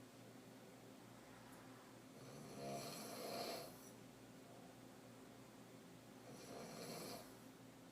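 A woman's deep open-mouth throat snoring while she sleeps on her back: two snores about four seconds apart, each lasting about a second, with a low rattle.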